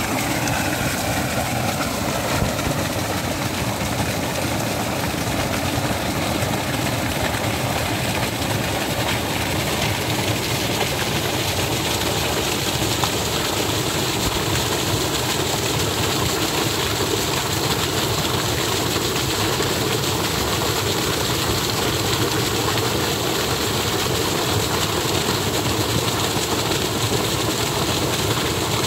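Irrigation water rushing steadily over stones into a field ditch: a loud, even, unbroken rush.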